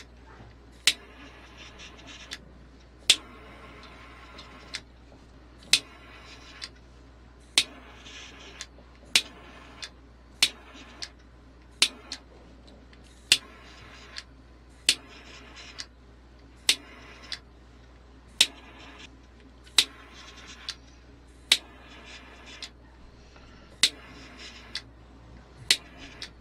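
Small handheld torch lighter being clicked over and over, about once every one to two seconds, many clicks followed by a short hiss of the gas flame, as it heats heat-shrink tubing on soldered wire joints.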